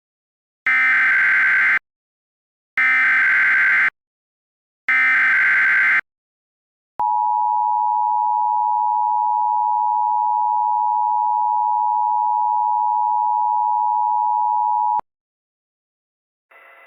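Emergency Alert System SAME header: three bursts of digital data tones, each about a second long, then the EAS two-tone attention signal held steady for about eight seconds. Together they mark the start of an emergency alert broadcast.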